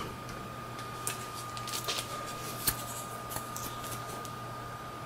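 A few faint clicks and taps as a block of 18650 cells in black plastic cell holders is set on top of another and the plywood spacer strips between them are adjusted by hand, over a steady faint hum.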